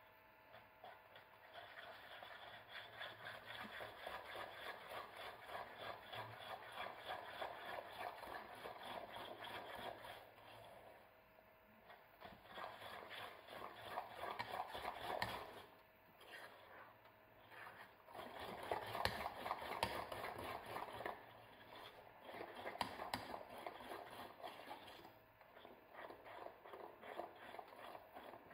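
Metal spoon stirring and scraping a thick mix of eggs, sugar and flour around a metal saucepan, the base for a custard cream. The scraping comes in spells broken by brief pauses.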